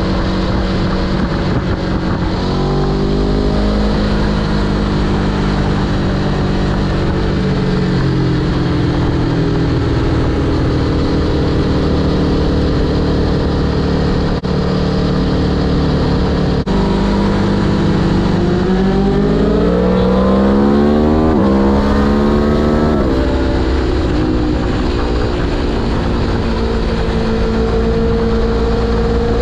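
Four-cylinder sport motorcycle engine heard on board at speed over steady wind rush. The engine note sags slowly for several seconds, holds, then climbs steeply under throttle about two-thirds of the way through before dropping back sharply and settling into a steady run.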